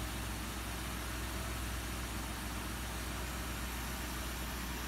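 Car engine idling: a steady low hum under a constant hiss.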